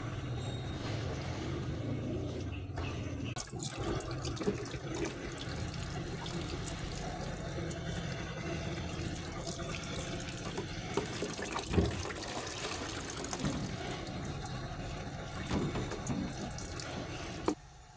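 Water splashing and sloshing in a tub in a sink as a wet kitten is washed by hand, with small irregular splashes throughout; it cuts off suddenly near the end.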